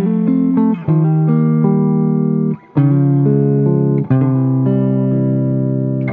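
Electric guitar playing a neo-soul chord progression: full chords are struck and left to ring, a new one every one to two seconds, with a brief gap a little before the middle.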